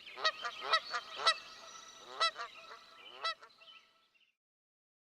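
A bird calling repeatedly: several short, sharp calls over about three and a half seconds, loudest in the first second and a half, then the calls stop.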